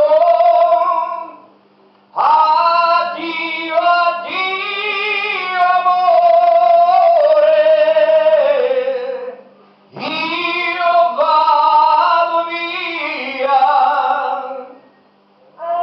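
A man singing unaccompanied into a handheld microphone over a PA, in three phrases with long held notes and short breaths between them. A faint steady hum lies underneath.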